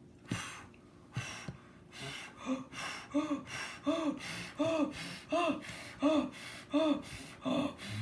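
A woman's acted huffing and puffing, the big bad wolf blowing at a house: two hard breathy blows in the first second or so, then a steady run of short voiced puffs, about one and a half a second.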